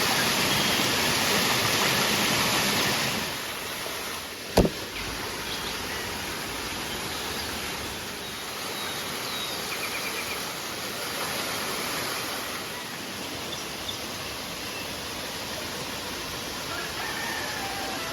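Steady rush of a river's flowing water. It is louder for the first three seconds, then softer. A single sharp knock comes about four and a half seconds in.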